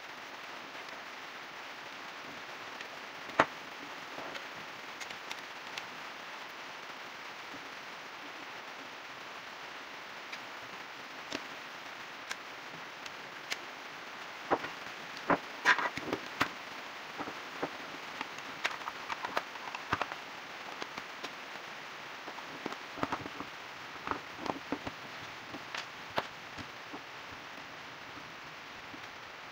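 Scattered sharp clicks and light knocks of a plug-in voltage protector's plastic housing and circuit board being handled and fitted back together, with a screwdriver working at the case screws later on. The strongest single click comes about three and a half seconds in, and a dense run of clicks follows about halfway through, all over a steady faint hiss.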